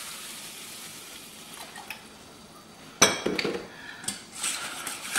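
Milk poured into a hot flour-and-oil roux in a stainless steel saucepan, with a faint hiss. About three seconds in, a wire whisk starts stirring, clinking and scraping against the pan.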